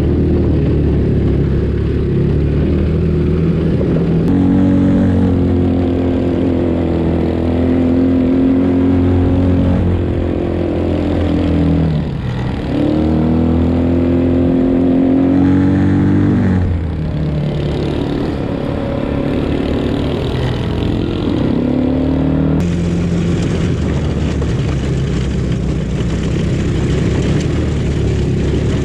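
Small single-cylinder engines of a 125cc mini jeep and a 200cc ATV working hard up a steep dirt hill. The engine note rises and falls with the throttle, drops sharply and climbs back about twelve seconds in, and the sound changes abruptly a couple of times.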